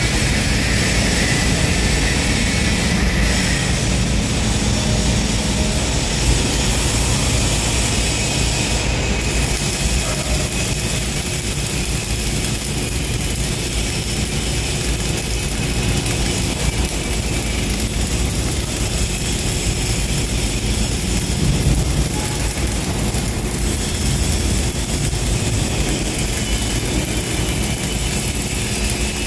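Flux-cored arc welding on thin steel: the arc gives a steady crackle and sizzle with spatter as the welder runs a bead in the horizontal position.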